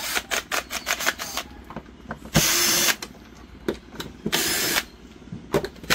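Cordless drill-driver backing screws out of a TV's plastic back cover, running in short bursts of about half a second: twice, with a third starting at the very end. Before the first burst there is a quick run of light clicks.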